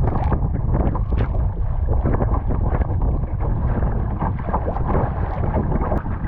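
Strong wind buffeting the microphone with a heavy low rumble, over choppy water splashing and slapping irregularly against a kayak.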